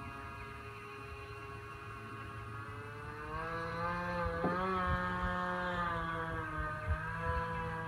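Radio-controlled airboat's brushless electric motor and air propeller running with a steady high whine. About three seconds in the whine grows louder as the boat passes closer, and its pitch wavers with the throttle.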